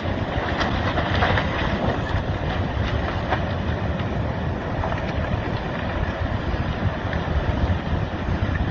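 Large landslide sliding into the sea: a steady low rumble with a handful of sharp cracks in the first half.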